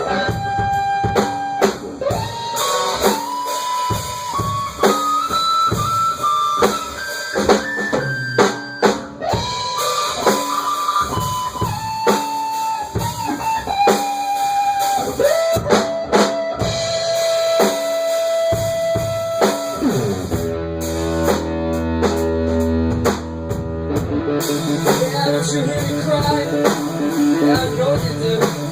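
Blues band playing an instrumental passage: a lead guitar plays long held notes that slide and bend over drums and rhythm guitar, and about 20 seconds in a thick, sustained low chord takes over.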